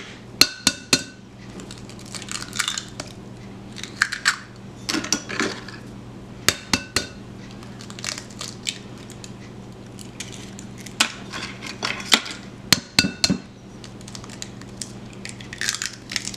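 Eggs being cracked one after another: sharp taps of shells against the rim of a mixing bowl, in several separate clusters, with clinks in between.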